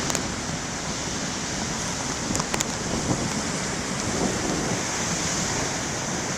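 Big waves breaking in heavy surf, a steady rushing roar with wind buffeting the microphone. A few brief clicks come about two and a half seconds in.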